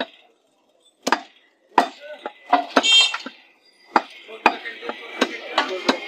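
A large butcher's chopping knife hacking beef on a wooden log chopping block: sharp chops at an irregular pace, about ten in all, with a short pause near the start.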